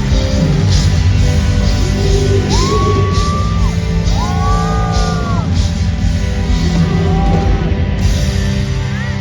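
A live rock band playing loudly in a large hall, with long held sung notes over drums and guitars, and some yells from the crowd.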